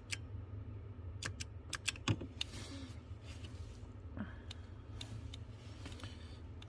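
Scattered light clicks and taps from a retractable headlight switch being pressed on and off and meter test leads being handled, over a low steady hum. Most of the clicks fall in the first two seconds, with a few more later.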